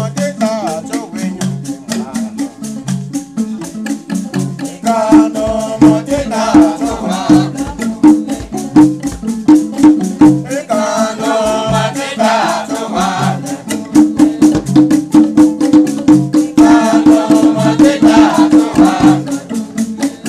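Music with a fast, steady rattle or shaker rhythm and sung phrases that come and go over it.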